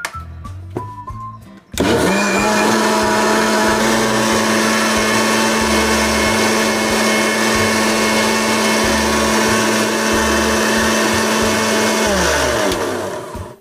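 Electric mixer-grinder (mixie) blending milk, strawberries, sugar and ice cream into a milkshake: the motor switches on about two seconds in and runs at a steady high speed for about ten seconds. Near the end it is switched off and spins down with a falling pitch.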